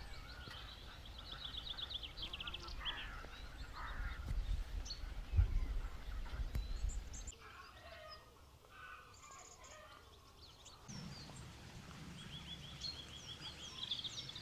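Outdoor birdsong: small birds singing rapid high trills near the start and again near the end, with scattered chirps between. A low rumble underlies the first half and stops about seven seconds in.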